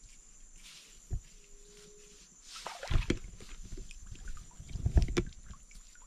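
Crickets trilling steadily in the background, with a sharp knock about a second in, then a run of low thumps and rustling from about halfway through, loudest twice near three and five seconds.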